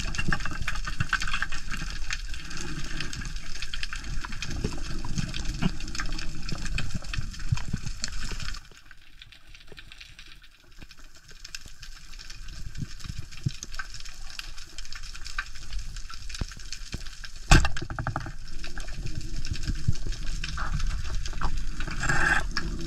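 Underwater noise recorded by a diving camera: a steady wash of water with fine crackling clicks throughout. It drops quieter for a couple of seconds about a third of the way in. There is one sharp, loud crack about three-quarters of the way through.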